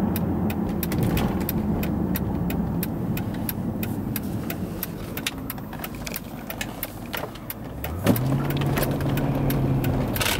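Mercedes-Benz S63 AMG's 6.2-litre V8 heard from inside the cabin while driving: a steady drone that eases off, then about eight seconds in the engine note rises quickly and holds as the car pulls away harder. Light clicks and rattles run throughout.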